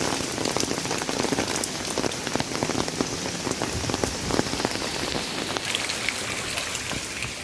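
Heavy rain falling steadily, a dense hiss with many close individual drops striking hard surfaces.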